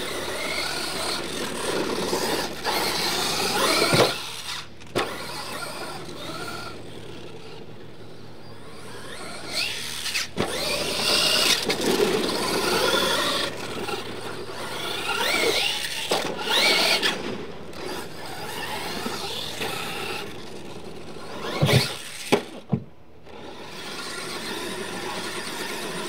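Radio-controlled monster truck driving hard on dirt: its motor whines up and down as it accelerates and slows, and its tyres scrabble through loose dirt. There are a few sharp knocks, the loudest about 4 seconds in and twice near the end.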